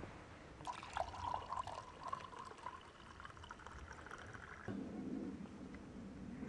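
Water poured from a bottle into a plastic mug for about four seconds, its pitch rising slightly as the mug fills. It stops abruptly, and a low murmur follows.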